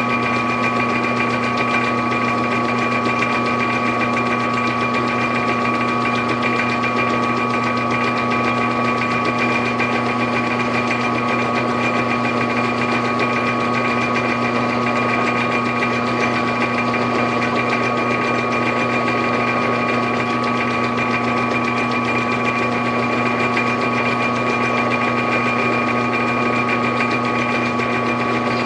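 Metal lathe running at a steady speed, its chuck spinning as a small part is turned, with a constant hum and whine that never changes pitch.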